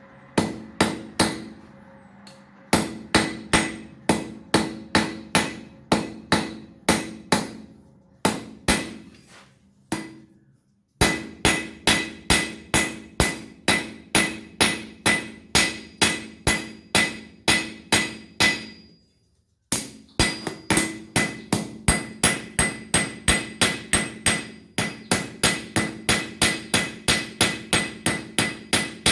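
Blacksmith's hand hammer striking steel on an anvil in a steady rhythm of about two to three blows a second, each blow ringing on. The blows stop twice, briefly, about a third and two-thirds of the way through, and come faster, about four a second, near the end.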